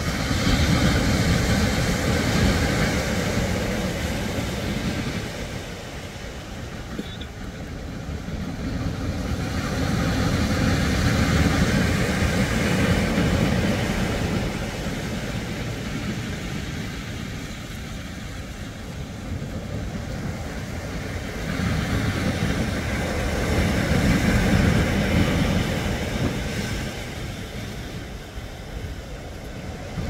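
Sea surf breaking and washing up a sand-and-pebble beach: a steady rush that swells and fades in three long surges about ten seconds apart.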